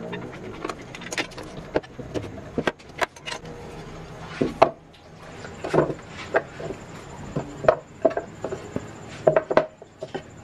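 Hands undoing plastic ratchet strap clamps and moving small MDF boxes about on a worktable. The result is a run of irregular clicks and knocks, with light scrapes of wood on wood; the sharpest knocks come in the middle and near the end.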